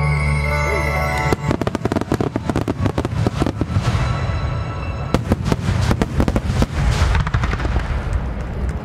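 A fireworks finale barrage: after a held music chord fades about a second and a half in, many shells burst in rapid succession, several bangs a second, giving way to dense crackling near the end.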